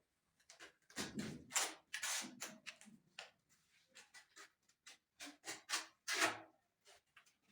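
Irregular scrapes and knocks of tile-setting work, hand tools on cement mortar and ceramic tile. A heavier thump comes about a second in, and the loudest scrape near the end.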